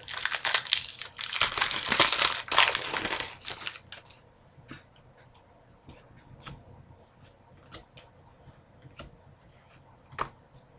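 Crinkly wrapper of a hockey card pack being torn open and crumpled for about four seconds, then scattered soft clicks as the cards are handled.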